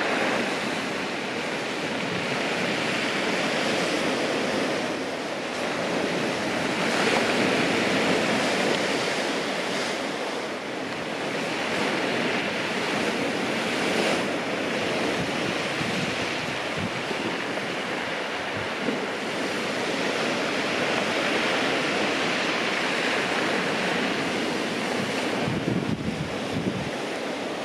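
Sea surf breaking and washing over a shingle beach, swelling and easing every few seconds, with wind buffeting the microphone, most of all near the end.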